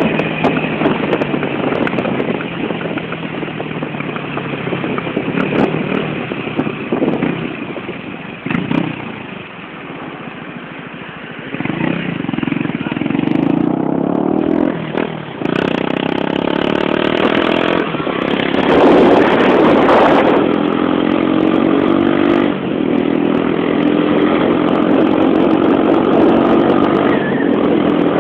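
Motorcycle engine heard from on the bike while riding in traffic, easing off to a quieter stretch and then accelerating again about halfway through, with wind noise on the microphone.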